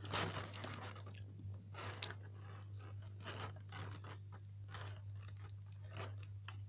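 Close-up chewing and crunching of crispy fried chicken wings, with short crunches every second or so, the strongest near the start. A steady low electrical hum runs underneath.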